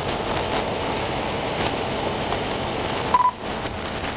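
Steady rushing background noise with a single short electronic beep about three seconds in.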